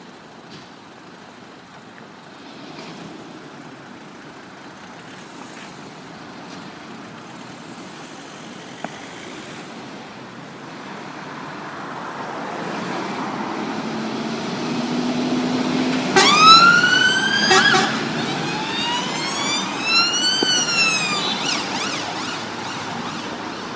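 Emergency vehicles on a turnout, a fire engine with a police escort: engine and road noise build as they approach. About two-thirds of the way in, a siren winds up sharply. It is followed by a few slower rising-and-falling siren sweeps that fade as the vehicles go by.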